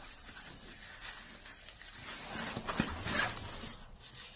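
Fabric rustling from a stroller's padded seat liner and harness straps being handled, with light taps. It grows louder about three seconds in, with one sharp tap.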